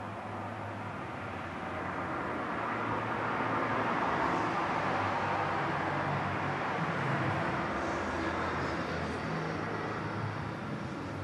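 A vehicle passing by: a rushing noise that grows to its loudest about four seconds in, then slowly fades away.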